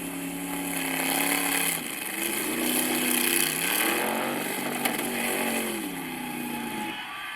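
V8 engine running in a clip of the car, its pitch climbing about two seconds in, holding and dropping back near six seconds. The owner blames its bad running on a mechanical fault inside the engine, not the ignition.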